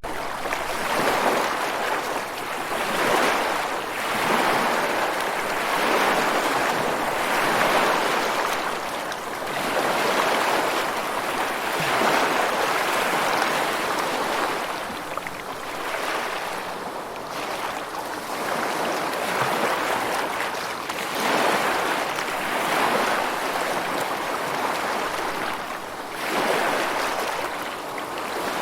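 Rushing water, a steady wash of noise that rises and falls in swells every two to three seconds.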